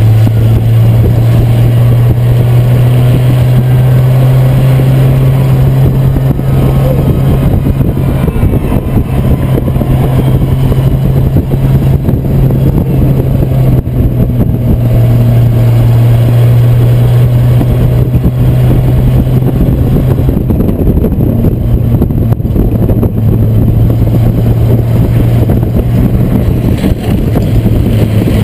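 A race car's six-cylinder engine, heard up close, running hard at steady high revs under a rough rumble of noise. Its note sags a little about two-thirds of the way through, then climbs again.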